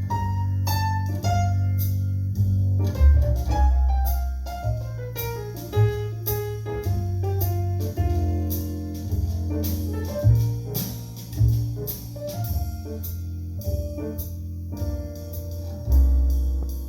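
Jazz piano trio recording played back over hi-fi loudspeakers with subwoofers: piano lines, including a falling run a few seconds in, over deep sustained bass notes.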